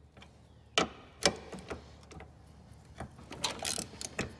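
Hand ratchet clicking as it turns and tightens the hood hinge bolt through a hood-strut bracket. There are two sharp clicks about a second in and a run of quick clicks near the end.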